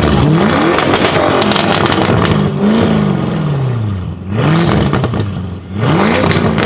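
Straight-piped Audi RS6 C7 twin-turbo V8 being revved hard several times. The engine note climbs and falls away between blips, with sharp crackles from the exhaust.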